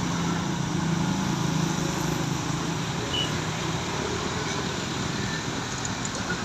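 Road traffic passing, with a low engine drone that fades out about three seconds in, over steady road noise.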